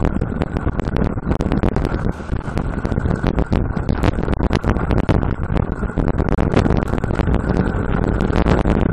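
Wind buffeting and road rumble picked up by a small camera riding on a moving road bicycle, with many irregular clicks and rattles throughout.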